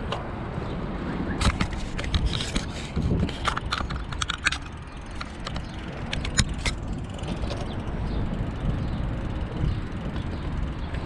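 Bicycle riding: steady low rumble of wind on the microphone and tyre noise. Scattered rattling clicks come in the first half, with a couple more a little past the middle.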